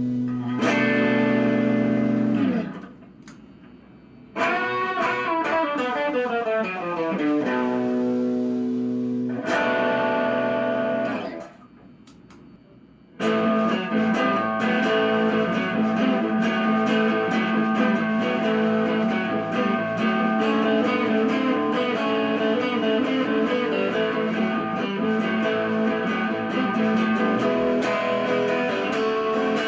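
Gibson Les Paul Special electric guitar played through a Marshall Master Lead 30 amp. Held chords are dipped down in pitch and wobbled with the Bigsby B7 vibrato arm, with two short breaks in the first half. From about 13 seconds in, chords are played steadily.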